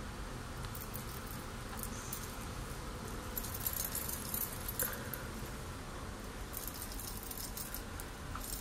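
Egg-shaped makeup sponge pressing foundation onto skin: faint, soft crackly rustles that come in short spells, over a steady low room hum.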